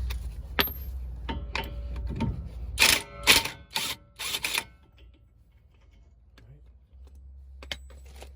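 Impact wrench hammering in several short bursts on a Honda Civic's 32 mm front axle nut to break it loose, after a few clinks of the socket going on. The bursts come about three seconds in and stop after a second and a half.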